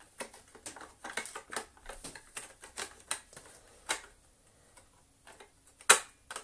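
Hard plastic parts of a Dyson DC07's changeover valve clicking and knocking as the carrier and its clips are worked into the vacuum's base by hand: an irregular string of small clicks, a few a second, with one louder knock near the end.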